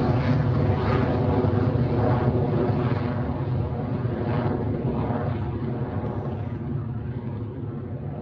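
Electron rocket's first stage, nine Rutherford engines, heard as a deep, steady roar with a ragged crackle, slowly fading as the rocket climbs away.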